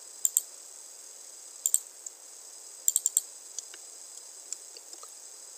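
Computer mouse clicks, several in quick pairs, followed by lighter taps on keyboard keys, over a steady faint hiss.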